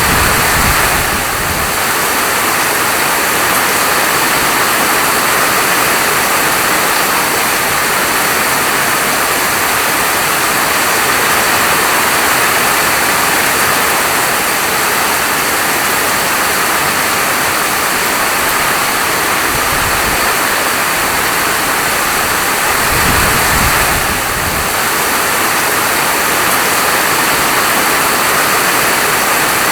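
Steady heavy rain, a dense even hiss, with a few brief low rumbles: near the start, about two-thirds through and again shortly after.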